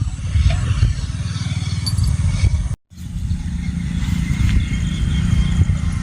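Steady low rumble with faint high chirping above it, broken by a sudden brief dropout to silence about three seconds in.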